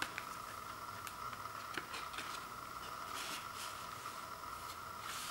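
Hands handling a cardboard CD digipak: a few light clicks and taps, then short rustles of card as its panels are folded open. A steady faint whine sits in the background throughout.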